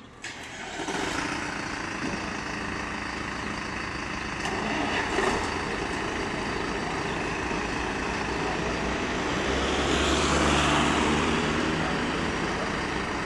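Diesel engines of fire trucks starting up and running in the station bays. The sound comes on suddenly at the start and gets louder around ten seconds in.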